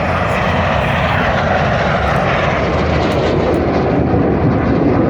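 Loud, steady noise of Red Arrows BAE Hawk T1 jets flying a low-level pass.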